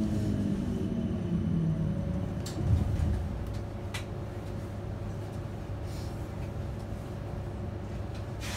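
Interior of an electric passenger train slowing: the running rumble and a falling motor whine die away over the first few seconds. After that a quieter, steady hum goes on, with a few light clicks.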